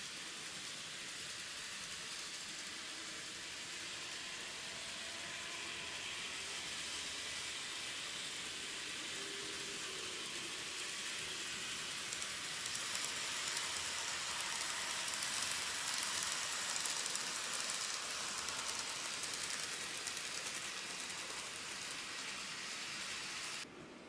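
N gauge model train, a Keihan 2200 series set, running over the layout's track: a steady hiss-like rattle of wheels on rail with a faint motor whine. It grows louder as the train comes close, is loudest in the middle of the stretch, eases off, and cuts off abruptly just before the end.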